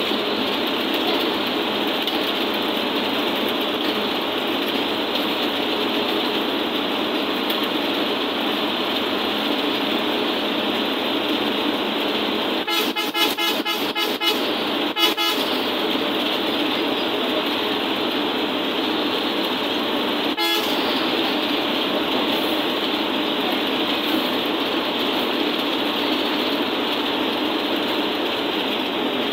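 Steady road and engine noise heard inside a moving bus. Around the middle comes a short run of sharp, quickly repeated pulses, and one more a few seconds later.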